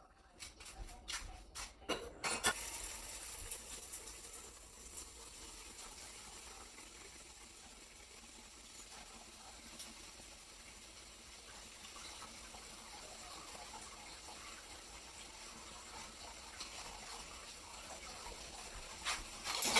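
Kitchen tap running in a steady stream into the sink, with a few clicks and knocks as it is turned on about two seconds in and again near the end.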